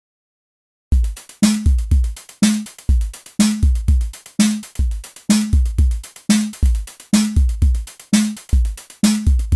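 Complete silence for about a second, then an electronic drum-machine beat starts and keeps going: heavy kick drums and snare hits about twice a second, with a short low pitched hit between them.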